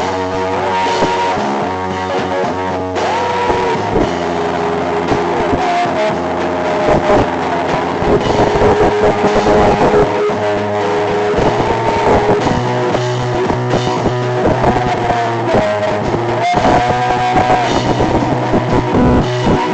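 Instrumental band music with a steady beat: a gliding guitar melody over bass and drums.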